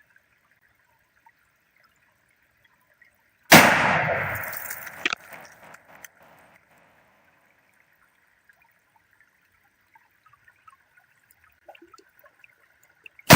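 A rifle shot from a .270 Remington 700 about three and a half seconds in, its report dying away over two to three seconds, and a second shot at the very end. No explosion follows: the soft-point bullets pass through the Tannerite target without detonating it.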